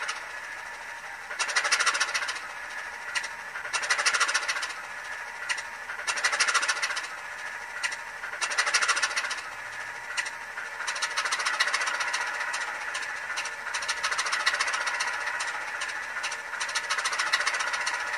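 DCC sound decoder in an N gauge Farish Class 25 model playing a diesel engine start-up sequence through its tiny speaker, thin and tinny with almost no bass: about five short start attempts roughly two seconds apart, then the engine catches and runs continuously from about eleven seconds in.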